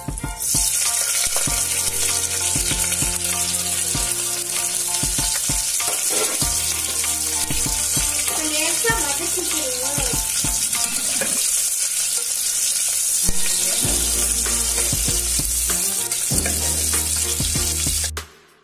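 Sliced onions sizzling steadily in hot ghee in an aluminium pressure cooker as they go in, stirred with a steel ladle. The sizzle starts about half a second in and cuts off suddenly near the end.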